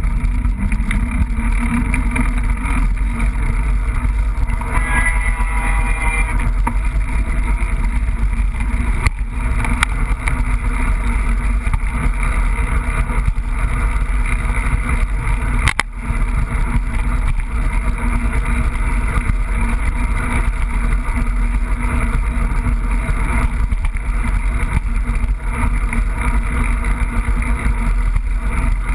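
Mountain bike rolling along a trail with steady wind rumble on a GoPro camera's microphone and the rattle of the bike over the ground. About five seconds in there is a brief high squeal, and a sharp click comes near the middle.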